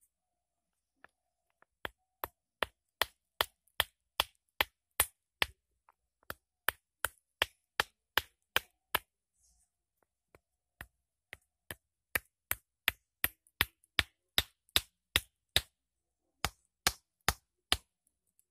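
Hammerstone striking a stone blank held against a rock anvil: sharp stone-on-stone knocks, about two or three a second, in runs broken by short pauses. The blank is being pecked and flaked into the head of a stone axe.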